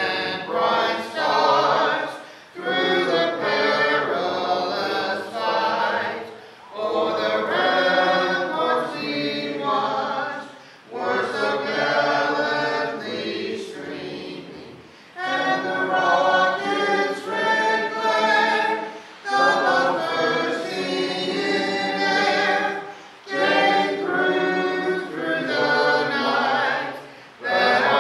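A group of voices singing together, unaccompanied, in long phrases with brief pauses between them.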